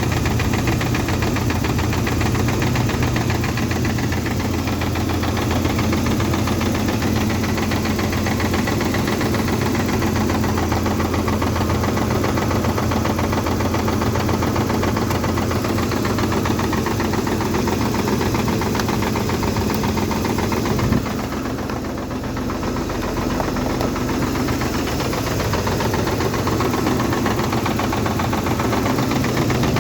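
Toyota 3VZ-E V6 engine running steadily with a rapid, continuous knock (стук). About two-thirds of the way through there is a short bump, and the sound then runs a little quieter for a few seconds.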